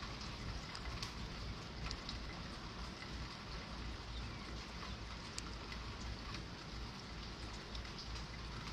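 Steady rain falling, a constant hiss with scattered sharp drop ticks and a low rumble underneath.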